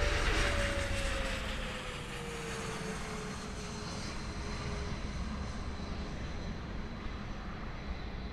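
Fixed-wing aircraft passing overhead and receding. Its low rumble fades, and its engine tone drops slowly in pitch over the first few seconds before dying away.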